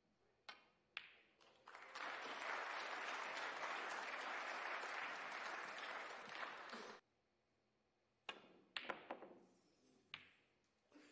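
Audience applause, which starts abruptly about two seconds in and cuts off suddenly about five seconds later. A few sharp clicks come before and after it.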